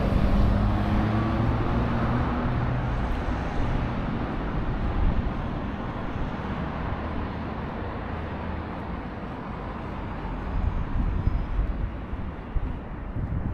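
A motor vehicle passing close by on a street: its engine hum is loudest at the start and fades over the first few seconds, leaving steady traffic noise.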